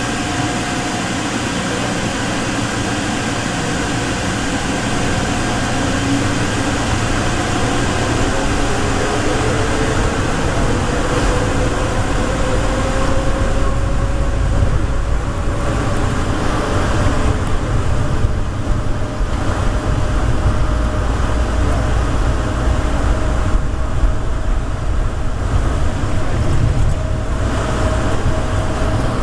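Denver airport's rubber-tyred automated people-mover train running through its tunnel, heard from on board: a steady rumble with a motor whine that slowly rises in pitch as the train gathers speed.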